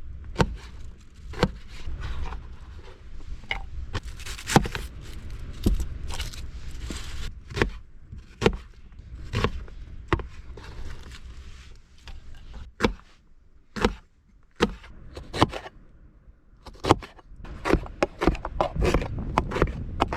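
Wind buffeting the microphone as a low steady rumble, with irregular sharp knocks, clicks and scrapes of cooking gear and food packages being handled.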